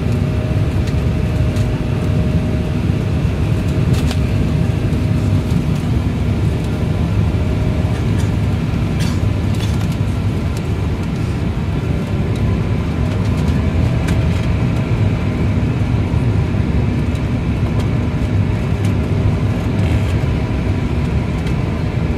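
Jet airliner cabin noise on final approach: a steady roar of the engines and rushing air, with a faint steady engine whine and a few light rattles.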